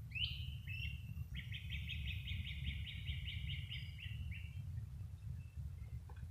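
A songbird sings one song: a couple of short opening notes, then a long run of evenly repeated notes at about four a second that falls slightly and fades near the end. A steady low rumble lies underneath.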